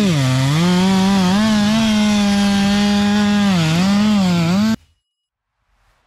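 Chainsaw running at full throttle, its engine note dipping briefly several times as the chain takes load in the cut. It cuts off suddenly near the end.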